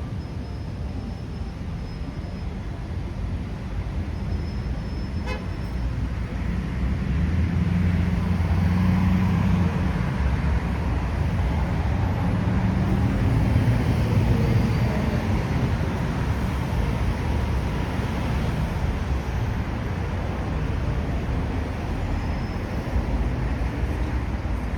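Road traffic rumbling steadily, swelling louder for several seconds in the middle as vehicles pass close by, then easing back.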